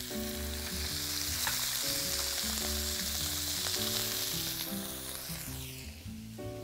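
Shawarma-cut strips of veal sizzling as they hit a very hot oiled wok. The sizzle fades away about five to six seconds in. Soft background music plays underneath.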